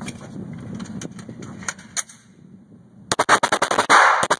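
A rapid string of shots from a 9mm Glock 19 Gen4 pistol starting about three seconds in, with the loud echo carrying on after the last one. The pistol is held firmly and cycles every round cleanly, with no stovepipe jam.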